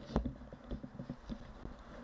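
One sharp click just after the start, then scattered light ticks and taps at an uneven pace.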